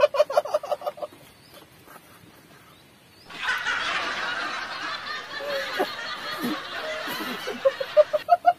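A man snickering in a quick run of short bursts during the first second, and again near the end. In between, a steady rustling hiss lasts about five seconds and cuts off abruptly.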